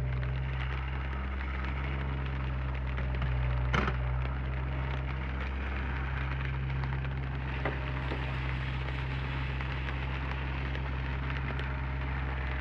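Komatsu PC30 mini excavator's diesel engine running steadily, with a crackling hiss over it. A sharp knock comes about four seconds in, and a smaller click near eight seconds.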